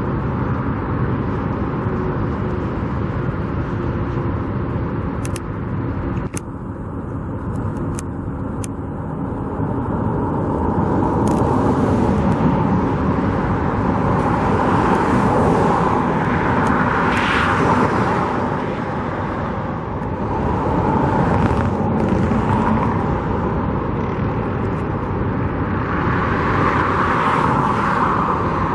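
Outdoor road traffic: a steady hum of cars, with several vehicles passing that swell and fade, the loudest about halfway through and near the end. A few faint clicks sound in the first third.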